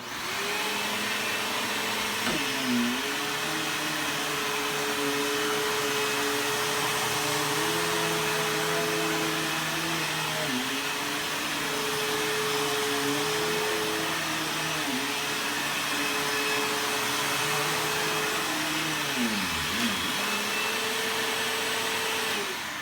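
Bissell Rewind PowerHelix SmartClean bagless vacuum switched on and running steadily as it vacuums powder off the floor, its motor dipping briefly in pitch about four times; it switches off at the very end.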